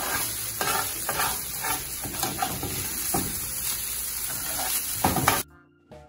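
Flaked saltfish frying in oil in a nonstick pan, sizzling steadily, with a spatula scraping and stirring through it in repeated strokes. The sizzle cuts off suddenly near the end.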